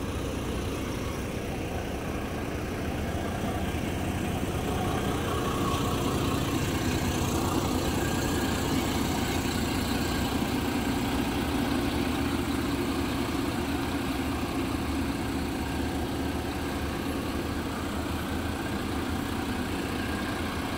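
Volvo B11R coach's rear-mounted six-cylinder diesel engine idling steadily, growing a little louder a few seconds in.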